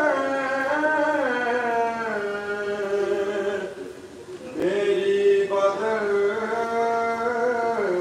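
A man's voice chanting a slow devotional lament in long, held, sliding notes, breaking off for about a second a little before the middle and then resuming.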